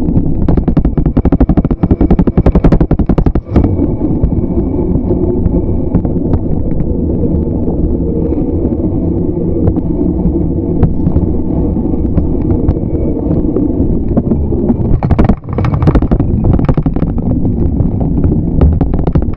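Bicycle-mounted camera rattling and knocking as the bike rides over the paved path, in dense runs near the start and again near the end, over a steady rumble of wind on the microphone.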